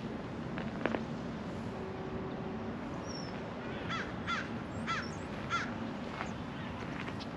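A bird giving four short, harsh calls in quick succession about four seconds in, over steady outdoor background noise.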